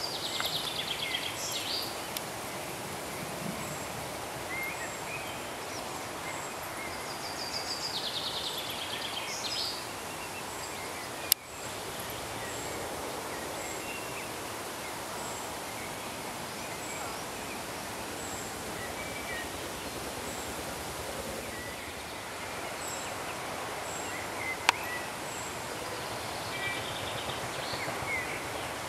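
Outdoor ambience: a steady rush of wind and leaves, with a songbird in the trees repeating a short, descending trilled phrase three times and other birds chirping faintly. Two sharp clicks, one about 11 seconds in (the loudest sound) and one near 25 seconds.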